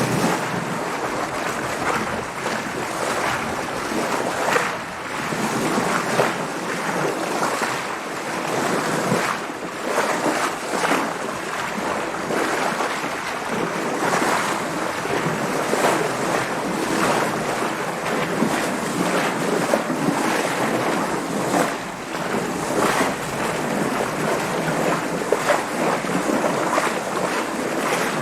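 Water splashing and washing around a sailing boat in waves, with wind: a continuous wash broken by many brief splashes.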